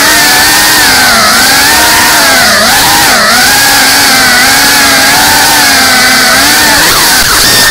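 GEPRC Cinelog 35 cinewhoop's brushless motors and ducted propellers whining as it flies, the pitch rising and falling with the throttle, recorded from on board.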